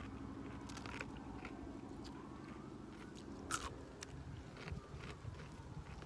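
Close-up chewing and biting of crispy fried chicken: the breading crunches in irregular bites, the loudest crunch about three and a half seconds in. A steady low hum runs underneath.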